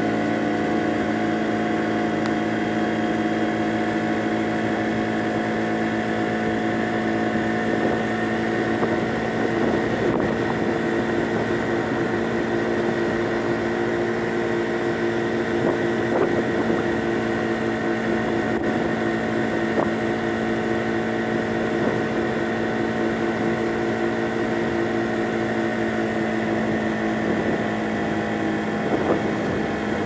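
A Honda Giorno 49cc scooter's four-stroke single-cylinder engine running at a steady cruising speed, an even hum that holds one pitch throughout.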